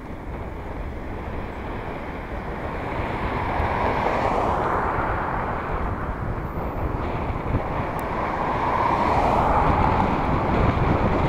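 Wind rushing over the microphone of a camera on a moving bicycle, mixed with road traffic noise from the road alongside. The rush swells twice, about four seconds in and again near the end.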